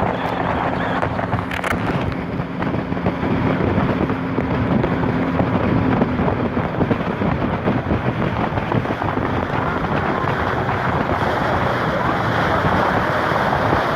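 Speedboat engine running, its steady drone fading into the noise after about six seconds, under rushing water and wind buffeting the microphone.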